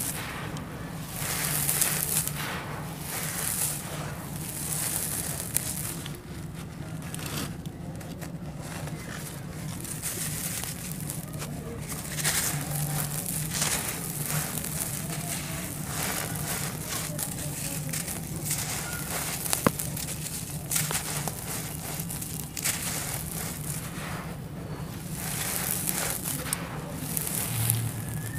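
Dry, dusty, grainy sand-cement powder with small lumps being poured and sifted through bare hands and crumbled: repeated sandy hissing swells as it streams down, with small crackles as lumps break.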